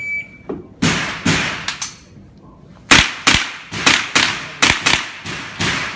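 A shot timer's short electronic beep, then a string of about a dozen gunshots fired in quick groups with brief pauses between them, each crack ringing off the walls.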